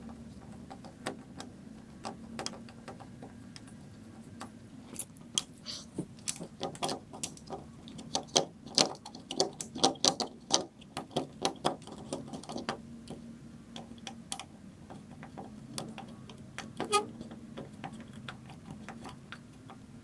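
Hand screwdriver turning the mounting screws of a sliding patio door's metal handle, with irregular light metallic clicks and ticks as the tip engages the screws and the handle shifts against its plate. The clicking comes thickest through the middle of the stretch, with a few more later on.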